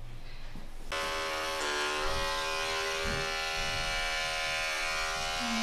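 Electric animal hair clipper switching on about a second in and buzzing steadily as it shaves the fur around a dog's chest wound ahead of stapling. Its pitch sags briefly soon after it starts, then holds steady.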